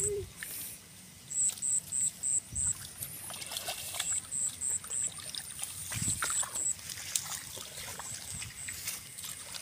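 Hands groping and sloshing through shallow muddy water, with small trickles and splashes. Over it a high, thin chirp repeats in short runs of four or five notes, about four a second, several times.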